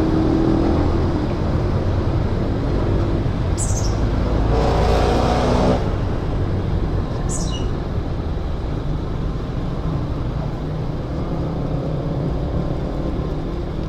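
Steady motor-vehicle engine rumble with road and wind noise. About four and a half seconds in, an engine note rises for a second or so. Two short high squeaks fall in pitch at about 3.5 s and 7 s.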